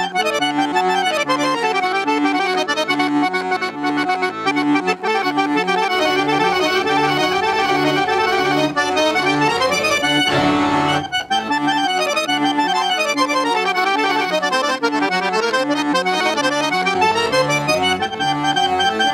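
Solo piano accordion played live: fast melodic runs sweeping up and down over a steady pulsing bass-and-chord accompaniment, with a short hissing rush about halfway through.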